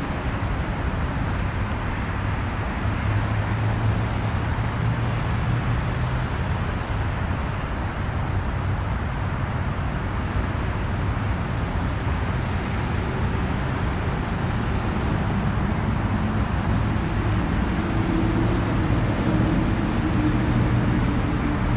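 Steady rumble of road traffic with a low engine hum underneath; a second, higher hum joins in during the last few seconds.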